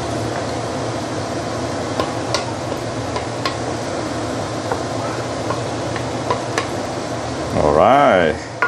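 Noodles, prawns and cabbage in a soy broth sizzling and bubbling in a stainless-steel frying pan while a wooden spatula stirs them, with light scrapes and taps on the pan. Near the end comes a brief, louder pitched sound that rises and then falls.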